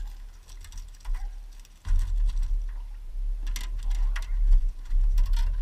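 Clicks and knocks of a landing net and landed fish against the floor of an aluminium boat, in clusters about 3.5 and 5 seconds in, over a low rumble that sets in about 2 seconds in.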